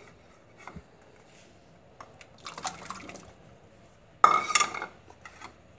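Sliced carrots tipped from a plate into a pot of water, splashing and plopping in: a faint patter first, then one louder splash about four seconds in.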